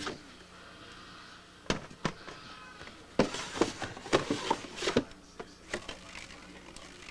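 A cardboard beer case being torn open by hand: a series of short, sharp rips and knocks, most of them bunched between about three and five seconds in.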